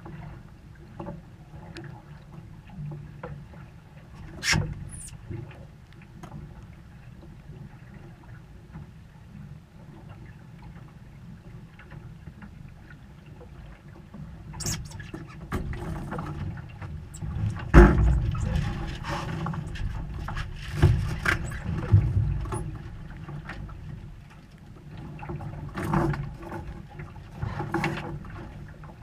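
A steady low rush of water and wind against the hull of a small sailing dinghy, with scattered knocks and clatter of lines and fittings as the sailor hauls the ropes. The loudest knock comes about eighteen seconds in, followed by a busier run of knocks.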